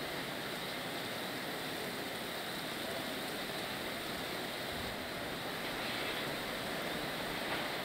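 A steady, even rushing noise with no pitch or rhythm, like rain or wind, holding the same level throughout.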